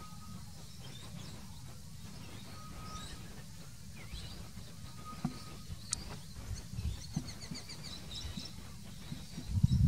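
Bush ambience: scattered bird chirps and short whistles, with a quick trill of repeated notes about seven to eight seconds in, over a steady low rumble. Louder low thumps come in near the end.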